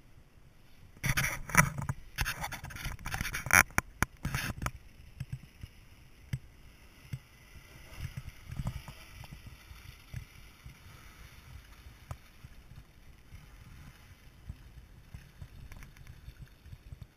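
A few seconds of loud scraping and crackling right at the microphone, then a Honda HR-V driving slowly past on a wet dirt track. Its engine and tyres are a faint low rumble, loudest about eight seconds in.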